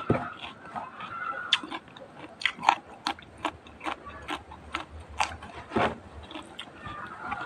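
Close-up eating sounds: chewing with a run of sharp, irregular crunches as food is bitten and chewed.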